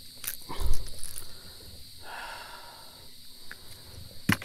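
Steady insect chorus, with knocks and clicks from a bass being handled over a kayak's deck. A dull thump a little under a second in is the loudest sound, and there is a sharp click near the end.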